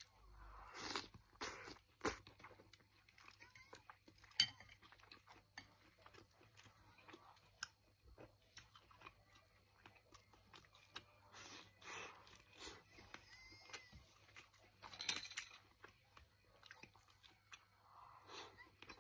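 Close-miked chewing of food, with irregular crisp crunches and a few louder, sharper bites spread through.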